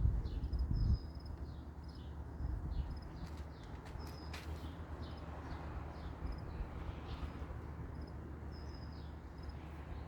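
Faint, repeated high chirps of small birds over a steady low rumble. The rumble is louder in the first second.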